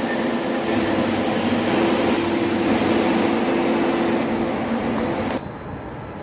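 Machine-shop noise from metal-cutting machine tools running: a loud steady wash of noise with a low held hum, dropping to a lower level a little past five seconds in.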